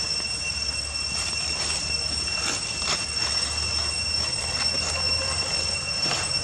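Steady, high-pitched drone of cicadas, holding the same pitch without a break, with a few faint clicks scattered through it.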